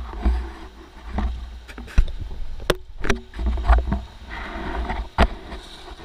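Inflatable river raft in choppy water: irregular splashing and slapping of water against the raft, with low rumbling and a few sharp knocks, about four of them from two seconds in.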